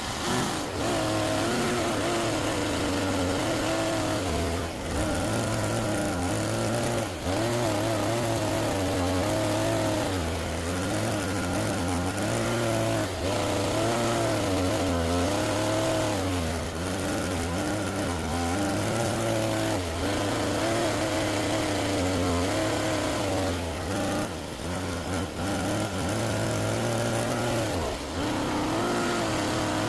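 Motor of a homemade RC excavator running steadily, its pitch wavering up and down as the load changes.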